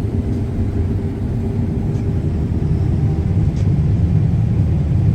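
John Deere S660 combine running steadily while harvesting corn at slow ground speed: a continuous low rumble with a faint steady hum above it.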